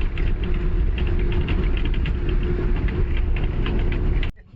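A motor vehicle's engine running: a steady low rumble with a faint held hum and scattered light rattles. It stops abruptly near the end.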